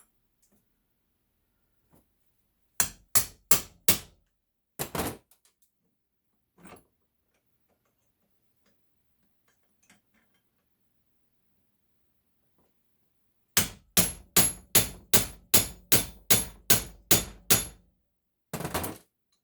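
Hammer blows on metal with a ringing clang: four quick strikes, then, after a pause, a fast run of about a dozen strikes at about three a second and one last blow. The strikes split the aluminum casting away from a water heater's brass valve fitting.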